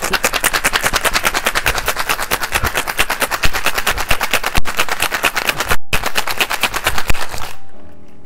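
Ice rattling in a copper cocktail shaker being shaken hard: a fast, loud, steady rattle with a brief break about six seconds in, stopping shortly before the end.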